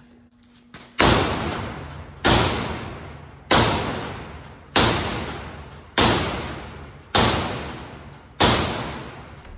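Sledgehammer striking the steel hinge of a roll-off dumpster tailgate seven times, a blow a little over every second, each hit ringing out and fading before the next: hammering the bent hinge straight.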